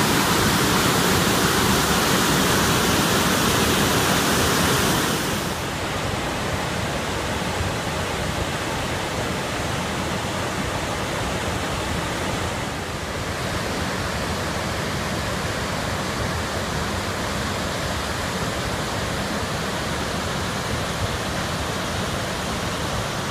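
Waterfall rushing in a steady roar of falling water. About five seconds in it becomes a little quieter and duller.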